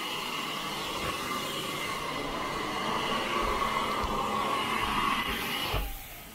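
Suction rush of a carpet-extraction wand or vacuum hose, steady and slightly swelling, with a few low thumps, then cutting off suddenly near the end.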